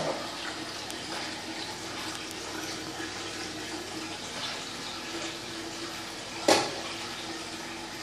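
Aquarium water circulating steadily, a running-water hiss with a faint low hum. One loud sudden hit about six and a half seconds in.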